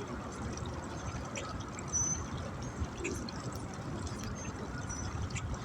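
Steady water noise at the bank, pouring and trickling, over a low rumble, with a few short high chirps about two seconds in and again near the end.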